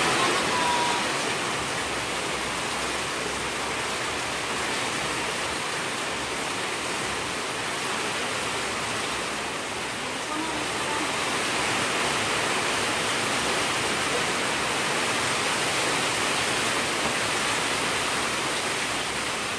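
Heavy rain falling steadily: a dense, even hiss.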